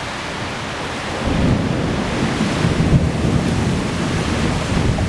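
Storm wind blowing hard in a steady rush, with a heavier low rumble and buffeting coming in about a second in.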